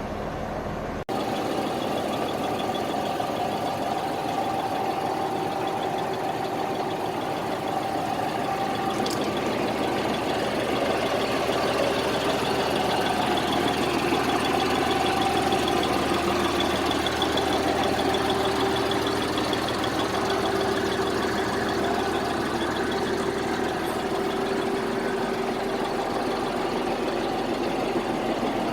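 Volvo B58 bus's six-cylinder diesel engine idling steadily, with a sharp change in the sound about a second in.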